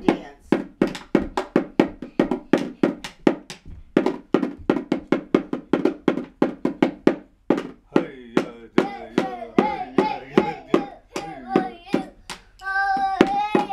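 Toy drum beaten with drumsticks in a quick, steady rhythm. From about eight seconds in, a child's voice sings along over it, ending in a long held note.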